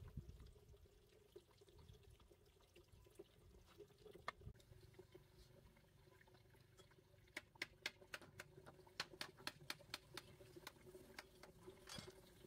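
Faint, quiet clicks and taps of split bamboo strips knocking together as they are laid out and interlaced on dirt ground, with a quick run of clicks about halfway through, over a faint steady hum.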